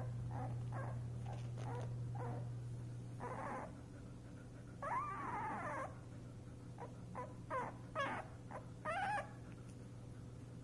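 Nine-day-old puppies whimpering and squeaking: a string of short squeaks, a longer whine about five seconds in that rises and falls in pitch, and a few more short squeaks near the end, over a steady low hum.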